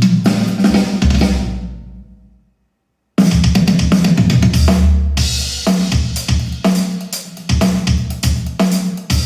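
Drum-heavy music played through Hivi Swans D1200 speakers in an audio test. One track fades out about two seconds in, there is a brief silence, and another track with hard-hitting kick, snare and cymbals starts abruptly.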